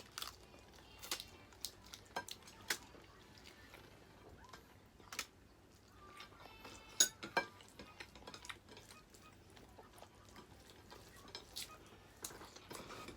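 Cutlery clinking and scraping on plates while eating: a scattered series of light clicks and taps, the loudest about seven seconds in.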